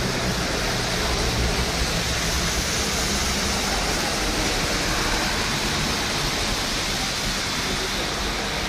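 Metro train running past with a steady, loud rushing noise over a low hum, swelling slightly in the middle.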